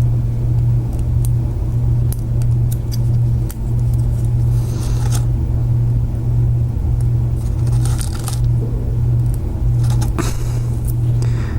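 A steady low hum, with small metallic clicks and a few short scrapes of a lock pick and tension tool working in a small padlock's keyway, about the middle and again near the end.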